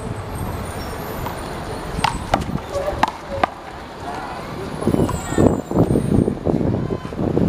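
A rubber handball smacked during a rally, heard as four sharp slaps between about two and three and a half seconds in, over a steady traffic hum. Indistinct voices come in during the second half.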